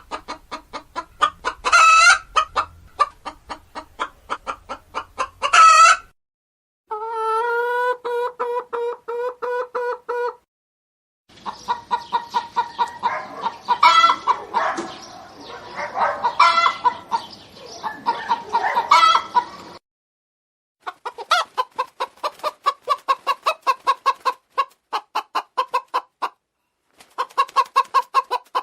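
Domestic hens clucking in rapid runs of short notes, with a few louder, drawn-out squawks among them. It is several separate recordings cut together, with brief total silences between them; one stretch holds a steady, fast pulsing call.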